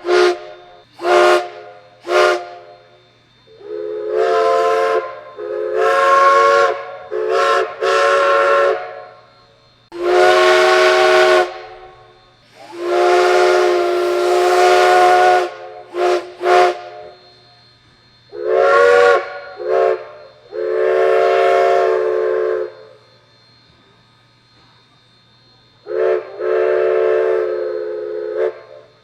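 Steam locomotive's chime whistle sounding a long series of short toots and long blasts, each a full multi-note chord with a rush of steam hiss as it opens, pausing for a few seconds near the end before one more blast.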